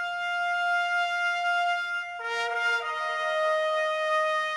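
Background music of slow, long held notes, the pitch changing about two seconds in and again shortly after.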